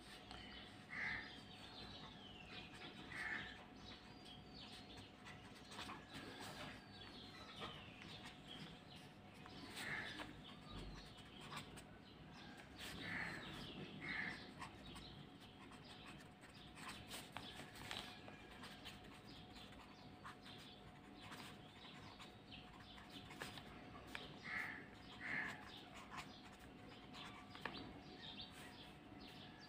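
Faint bird chirps: short calls and a few falling whistles every few seconds, over a steady low hum. Light scratching of a pen writing on paper.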